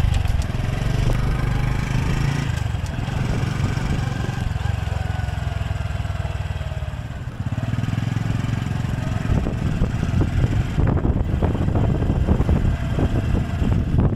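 Honda Super Cub's small single-cylinder four-stroke engine running as the bike rides along, with wind buffeting the microphone in the second half.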